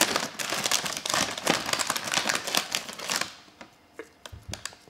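Foil snack packet crinkling as it is handled and a cheese twist is pulled out. The crinkling stops about three seconds in, leaving a few faint clicks.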